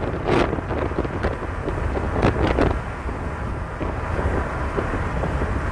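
Wind buffeting the microphone in gusts over a steady low rumble, with the strongest gusts near the start and about two seconds in.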